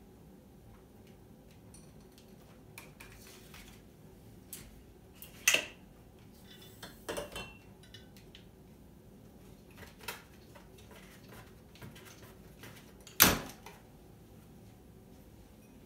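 Brompton folding bike being folded by hand: scattered clicks, knocks and short metallic rattles from its hinges, clamps and frame, with two sharp louder knocks about five and a half and thirteen seconds in.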